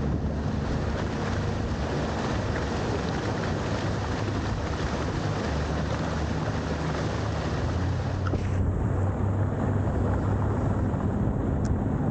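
Motorboat under way at speed: a steady engine drone under the rush of water and wind buffeting the microphone. About eight seconds in, the high hiss drops away and the low drone stays.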